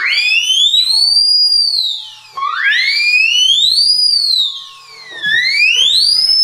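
A high, whistle-like tone sliding smoothly up and down in long siren-like arcs, rising and falling roughly every two to three seconds, with a lower steady tone held underneath during the first couple of seconds. It belongs to a free improvisation for electric guitar with effects and wind instruments.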